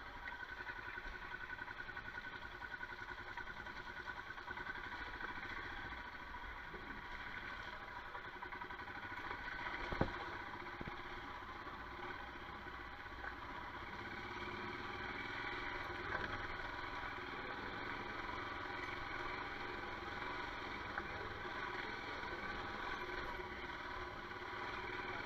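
Royal Enfield Himalayan's single-cylinder engine running steadily as the motorcycle is ridden along a muddy gravel lane, with one sharp knock about ten seconds in.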